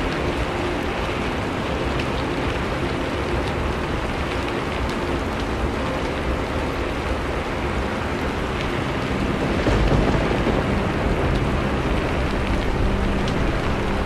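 Steady rain with scattered raindrop ticks, and a low thunder rumble that swells briefly a little past the middle.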